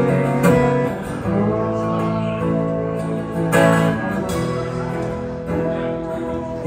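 A live band plays the instrumental intro of a song, led by strummed guitar, with held chords that change every second or two.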